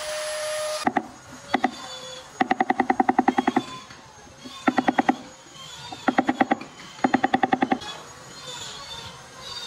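A handheld rotary carving tool with a ball burr whines at a steady pitch and cuts off about a second in. Then come several bursts of rapid, even ticking or rattling, about twelve ticks a second and louder than the tool, from an unseen source.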